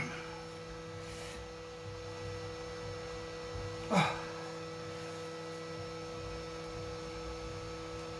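Steady electrical hum made of several held tones, with one short handling sound about four seconds in as gloved hands turn the turntable's tonearm base and ring.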